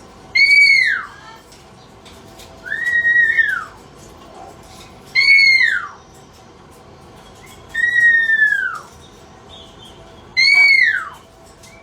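Pet parrot giving a repeated whistled call: five calls about two and a half seconds apart, each about a second long, rising briefly and then sliding down in pitch.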